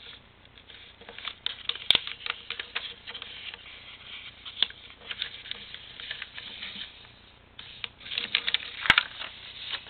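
A sheet of paper rustling and crinkling as it is folded and creased by hand, with a short quiet pause about three-quarters of the way through. A sharp click comes about two seconds in, and another, the loudest sound, near the end.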